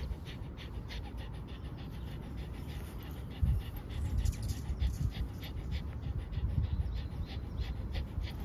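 Small dog panting quickly and evenly, with a low rumble underneath.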